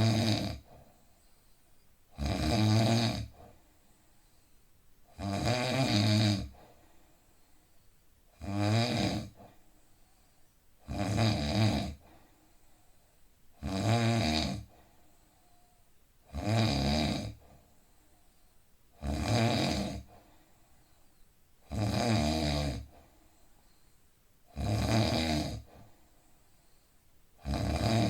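A man snoring in deep sleep with a steady rhythm: a snore about every two and a half to three seconds, each lasting about a second, with quiet gaps between.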